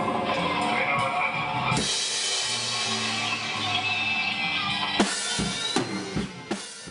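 Metal band playing the final bars of a song on electric guitars, bass and drum kit. From about two seconds in a chord rings out, a handful of closing drum hits follow, and the music stops abruptly near the end.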